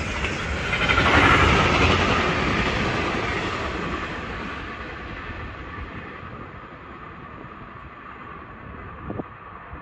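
Freight train wagons rolling past on the rails, loudest about a second in, then fading steadily as the end of the train draws away.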